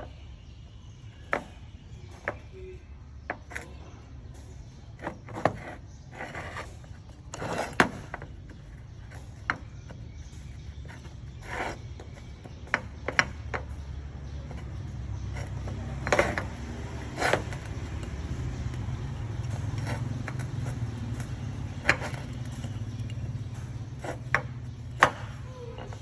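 Irregular sharp clinks and knocks of hand tools and metal parts during work on a fuel injection pump, over a low steady hum that grows louder a little past halfway through.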